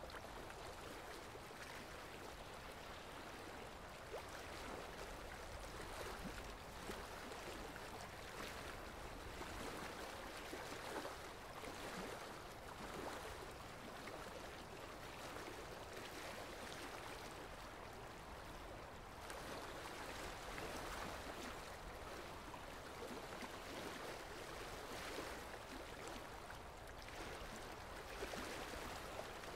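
Steady, gentle sound of water gurgling and lapping, swelling slightly every few seconds.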